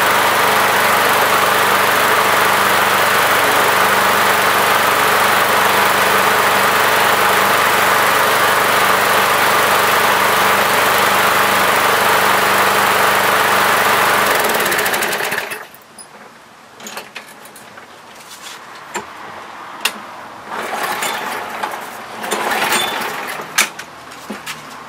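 Small four-stroke engine of a walk-behind lawn mower running steadily at a constant speed, then shutting off about fifteen seconds in and winding down. After it stops there are scattered clicks and knocks.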